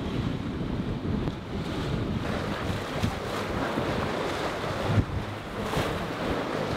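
Wind buffeting the microphone and waves washing against a sailing catamaran's hulls as it pushes into a headwind through rough sea, with a single thump about five seconds in.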